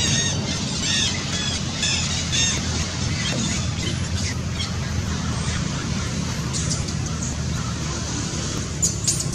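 Infant macaque squealing in distress, a run of high, arching cries about three a second in the first couple of seconds and a few sharper ones near the end: a baby protesting at being weaned. A low steady rumble runs underneath.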